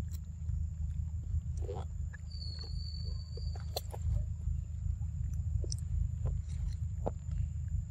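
Outdoor forest ambience under a steady low rumble: a constant thin high-pitched drone, one held high whistle from about two to three and a half seconds in, and a few scattered soft clicks and short low sounds.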